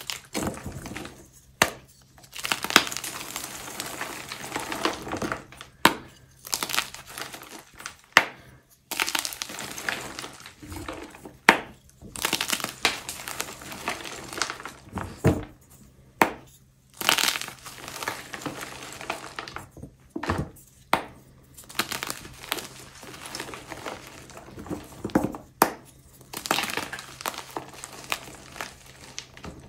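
Dyed gym chalk blocks being crushed and crumbled: repeated sharp cracks as blocks snap, each followed by a stretch of gritty crumbling.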